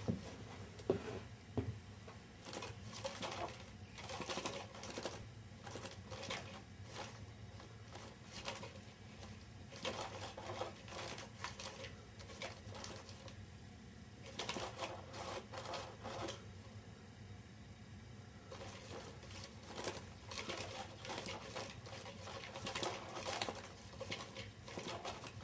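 The mechanism inside a round box-style mouse-tail cat toy clattering in bursts of rapid clicking, each a few seconds long, about four times with quieter pauses between.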